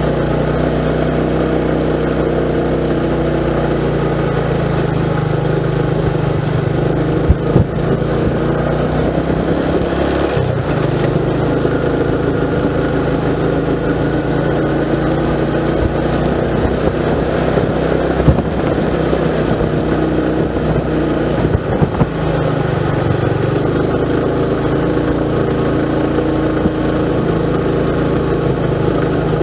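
Motorcycle engine running under way, its pitch rising and falling with the throttle, with a few sharp knocks along the ride.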